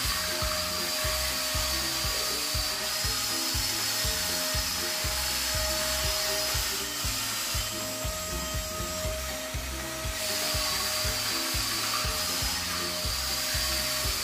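Background music with a steady beat over the high whine of a toy RC car's small electric motors. The whine drops out for a few seconds in the middle, when the car stops, then starts again.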